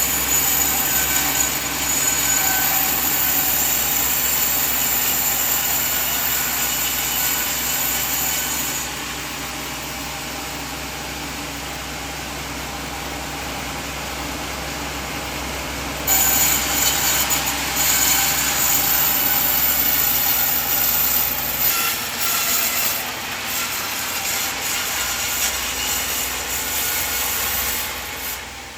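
Band sawmill cutting through a coconut log, a steady hissing whine of blade in wood. Between two cutting passes the machine runs more quietly. A low motor hum under it stops a little past the second pass's start.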